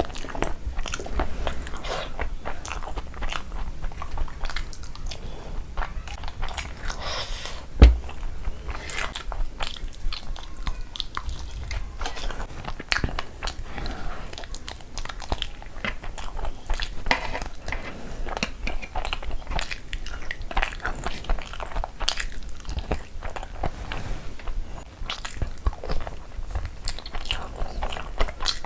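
A person chewing and biting food close to the microphone, with wet mouth sounds and some crunchy bites. One loud sharp knock about eight seconds in.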